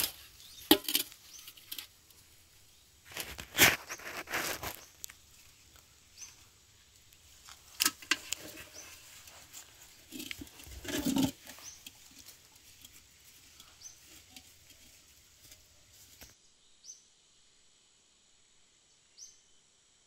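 Intermittent knocks, rustles and splashes from an aluminium pot with live fish in water being handled, loudest in the first half. Faint short bird chirps throughout, alone in the last few seconds.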